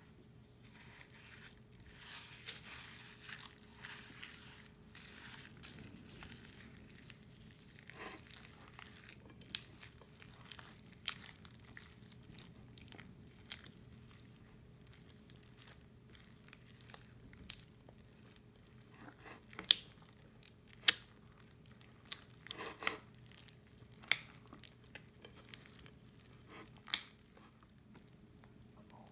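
Crunchy slime full of foam beads and seed beads being stirred and worked: a dense crackle and crunch for the first several seconds, then scattered sharp pops and clicks, the loudest in the second half.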